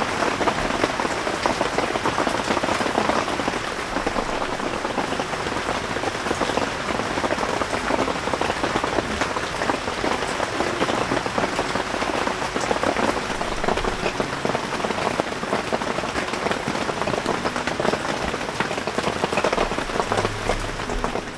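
Very heavy rain coming down: a dense, steady hiss of countless drops.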